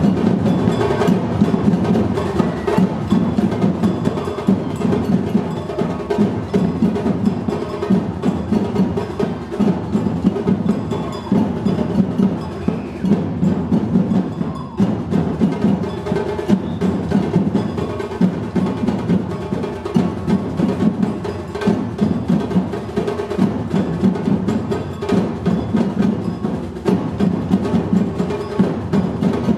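Percussion ensemble in rehearsal playing a steady, driving rhythm on drums, the low drums loudest, with sharp clicking strokes on top.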